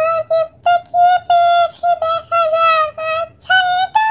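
A children's song sung in a high, childlike voice: short clipped notes on nearly the same pitch, with a falling glide near the end.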